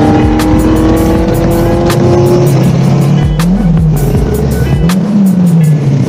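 Motorcycle engine, the Kawasaki Ninja 400's parallel twin, pulling steadily with its pitch slowly rising, then rising and falling twice near the end, under background music.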